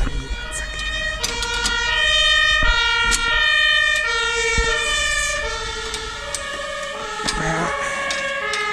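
Background music: a melody of short held notes stepping between many pitches, with sharp clicks and a low rumble underneath.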